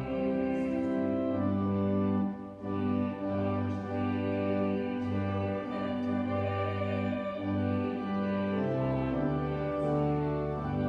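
Slow instrumental music of long held chords with deep bass notes, the chords changing every second or so.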